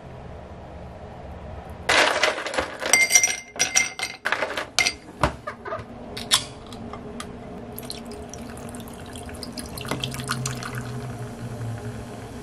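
Ice cubes clattering and clinking into a tall drinking glass, the glass ringing. About four seconds later a drink can's pull tab clicks open, then the carbonated drink is poured over the ice, fizzing and hissing as it foams up.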